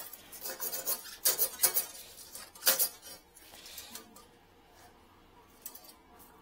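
Handling noise from plumbing gear: a run of sharp clacks and rattles in the first three seconds, then quieter rustling.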